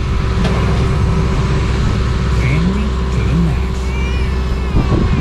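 An engine running steadily with a low rumble, its pitch briefly rising and falling a couple of times partway through.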